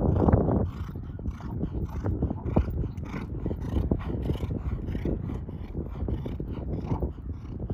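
Muffled hoofbeats of a Hanoverian mare moving over sand arena footing, a steady stride rhythm of about two to three beats a second. Wind buffets the microphone throughout, with a gust near the start.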